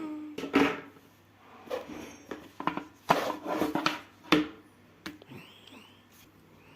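Hands handling a smartwatch's box and packaging: a quick run of clicks, taps and rustles for the first four seconds or so, then a few faint ticks.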